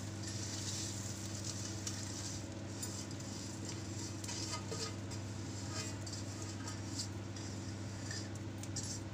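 Puffed fried gond is poured from a steel plate onto the flour mixture in a steel tray, making a brief dry rustling pour at the start. After that, only a few faint clicks sound over a steady low hum.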